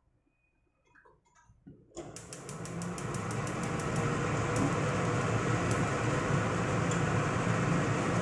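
Kitchen range-hood extractor fan switched on about two seconds in, starting with a quick run of clicks and spinning up to a steady whir.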